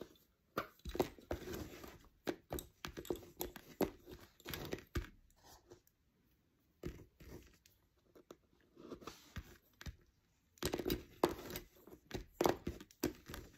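Lace bobbins clicking and rattling against each other as pairs are crossed and twisted, in irregular clusters with a couple of brief pauses.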